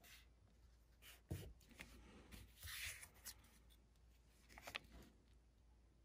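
Faint rustling and light taps of small paper strips being handled and pressed down onto a card roof, with a brief rustle near the middle and a few small clicks near the end.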